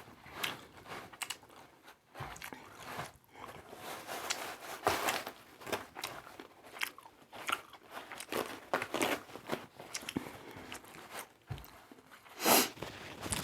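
Chewing and crunching of shrimp and scallop aguachile verde in a spicy serrano and citrus sauce: many short crunches and bites, with one louder burst near the end.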